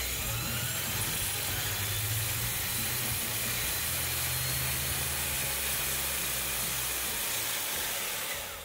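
Electric streamliner motorcycle's rear wheel and Goodyear land-speed racing tire spun up on a stand by its electric drive motor toward about 220 mph: a loud rushing hiss with a faint rising whine. The sound falls away near the end.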